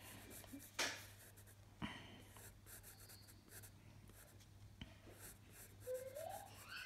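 Graphite pencil drawing on sketchbook paper: faint scratching of short strokes, with a couple of light ticks about one and two seconds in and a faint rising tone near the end.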